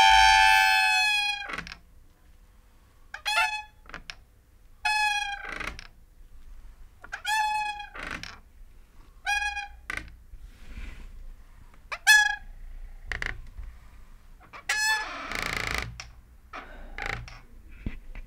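Creaking door hinge squeaking in about seven separate high squeals, the first and longest lasting over a second. Several squeals end in a low knock. Near the end comes a rougher grinding creak.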